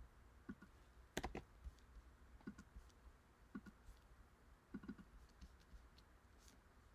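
Faint, scattered computer keyboard and mouse clicks, with one sharper click about a second in.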